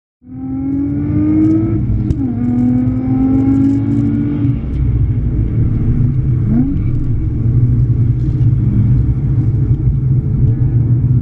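Nissan Skyline V35 350GT's 3.5-litre V6 with an aftermarket Fujitsubo exhaust, heard inside the cabin, accelerating hard: the engine note cuts in abruptly and climbs in pitch, breaking for gear changes about two seconds in and again past six seconds, then settles into a steadier drone.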